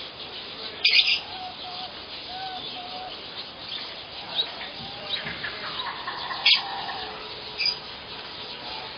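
Birds calling: many short chirps and calls throughout, with two louder short bursts about a second in and about two-thirds of the way through.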